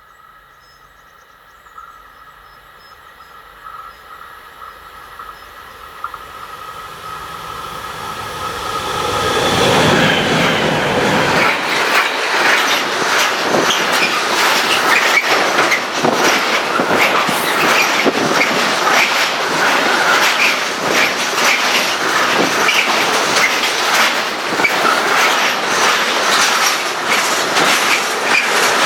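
A train approaching and passing close by: it grows steadily louder over about ten seconds, then goes by loud and sustained, with a rapid clatter of wheels over the rails.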